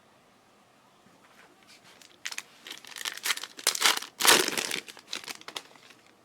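A foil trading-card pack wrapper being torn open and crinkled: a run of crackling rips from about two seconds in, loudest a little past the middle.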